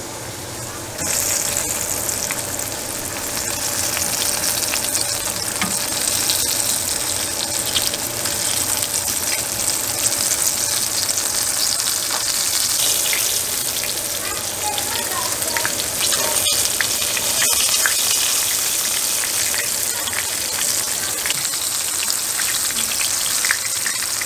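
Flour-dredged rabbit pieces frying in hot oil in a cast-iron skillet: a loud sizzle that starts suddenly about a second in, as the first piece goes into the oil, then carries on steadily with small crackles and pops.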